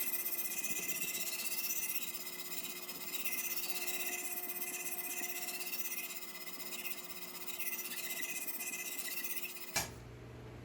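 Steel chef knife edge being scrubbed back and forth on a water-wetted 120-grit diamond plate in a guided sharpening jig, a steady high scratchy hiss as the coarse plate raises a burr on the edge.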